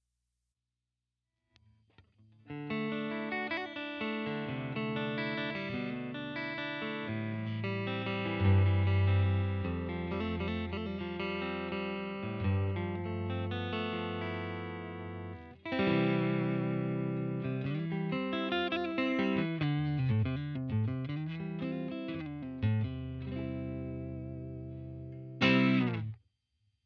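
Electric guitar, a Fender Stratocaster, played through a UAFX Dream 65 Reverb amp-emulator pedal: sustained chords and single-note lines. It starts about two seconds in, breaks briefly around the middle, and ends on a loud strummed chord that is cut off near the end.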